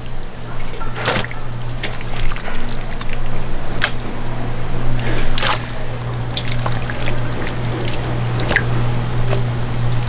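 Wet squelching and dribbling of marinated pork rib pieces being squeezed and mixed by hand, with a few sharp clicks over a steady low hum.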